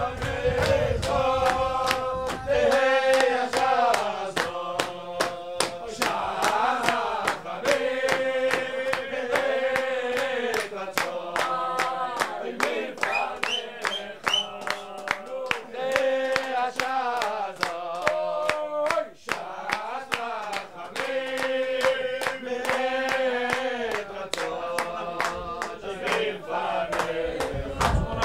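Men's voices singing a Hasidic-style melody together, over a steady beat of sharp ticks.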